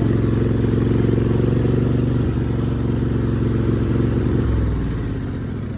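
Craftsman riding mower's Kohler 22 hp V-twin engine running steadily, then shut off near the end: its pitch drops and the firing beats slow as it winds down.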